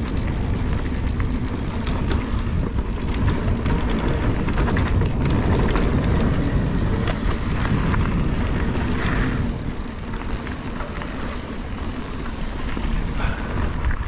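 Mountain bike ridden along a dirt trail: a steady rumble of wind on the microphone and tyre noise, broken by frequent clicks and knocks as the bike rattles over rough ground. It eases somewhat about ten seconds in.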